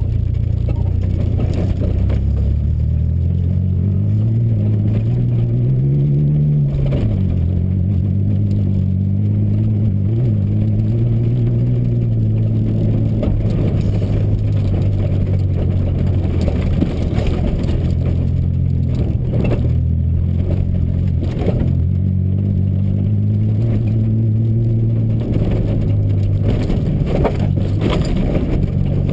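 Off-road prerunner truck's engine pulling hard, heard from inside the cab. The engine note climbs in pitch, then drops sharply about seven seconds in, and runs steadily after that. A few knocks and rattles come through as the truck crosses bumps on the dirt trail.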